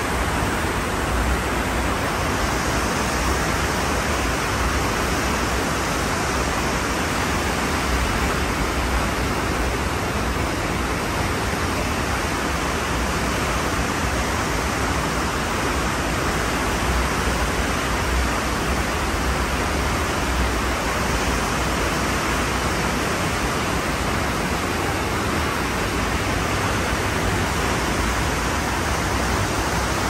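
Ocean surf heard as a continuous, steady rushing noise, with no separate waves rising and breaking.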